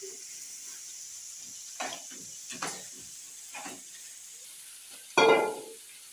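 A young child's short vocal sounds over a steady hiss, the loudest a brief cry about five seconds in.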